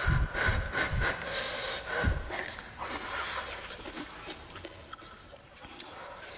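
Thick noodles being slurped and chewed close to the microphone, with breathing through the nose. There are a few low thumps in the first couple of seconds.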